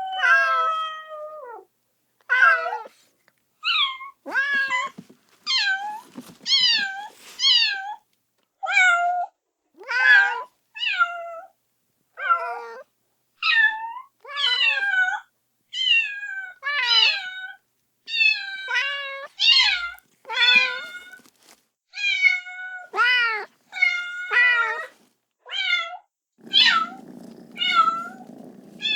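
Kitten meowing loudly and insistently, calling for its mother: short, high, piercing meows about once a second, many falling in pitch. Near the end a low, steady hum sets in beneath the calls.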